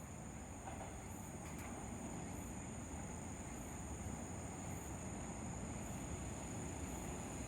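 JR Kyushu YC1 series diesel railcar approaching, a faint low rumble that slowly grows louder, under a steady high trilling of insects.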